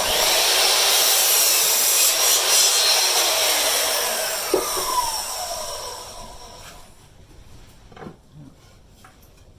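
Electric power saw cutting wood, starting suddenly; after about five seconds the motor is let go and its pitch falls as the blade runs down to a stop.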